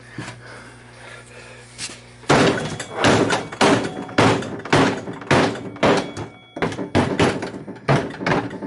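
A heavy steel bar pounding the sheet-metal floor pan of a snowmobile chassis, a string of loud metallic thuds about two a second starting a couple of seconds in, beating dents out of the pan.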